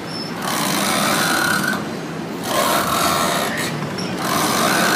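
River boat under way: a rough engine and rushing water noise that swells and eases three times.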